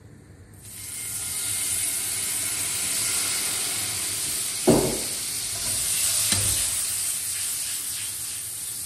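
White wine hits hot rendered guanciale fat in a frying pan and starts sizzling sharply about half a second in, then goes on as a steady high hiss while it boils off over full heat. There is a thump about halfway through and a lighter one a second and a half later.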